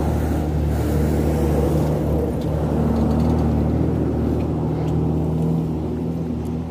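A large truck's engine running close by with a steady low hum as it moves slowly past on the road.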